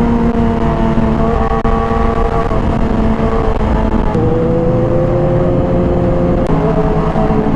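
Sport motorcycle engine running at cruising speed, heard from the rider's seat over low wind rumble; its pitch rises slightly about four seconds in and drops suddenly about six and a half seconds in.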